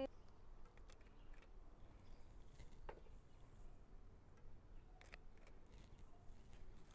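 Faint, scattered snips of Fiskars hand pruners cutting succulent stems: a few short clicks spread over several seconds.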